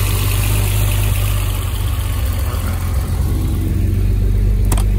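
BMW E24 M6's straight-six engine idling steadily with a low hum. A sharp click sounds near the end.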